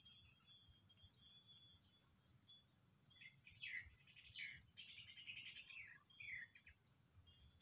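Faint bird calls: a few quick downward-sliding chirps and a short twittering run between about three and seven seconds in, over a steady high-pitched hum.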